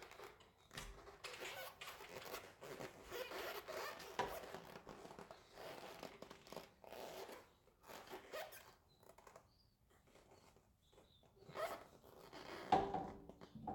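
Lug nuts and a socket wrench being worked at a car wheel: faint, irregular rasping and clicking, with a louder clatter near the end.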